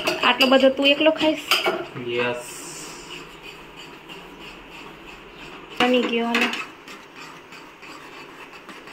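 Metal spoon clinking and scraping against a cooking pot as a dish is stirred on the stove, in sharp short knocks.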